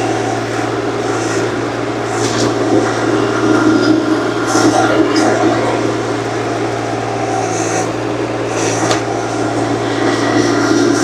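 Small earthmoving machine's engine running at a steady speed, with a few short, high scraping squeals over it as it works the ground.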